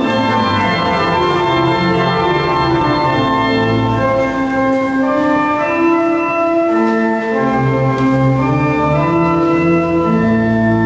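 Organ playing slow, sustained chords over held bass notes, the chords changing every second or so.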